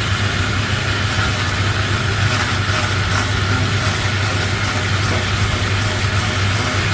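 Woodworking machinery running steadily with a constant low hum under a wide hiss.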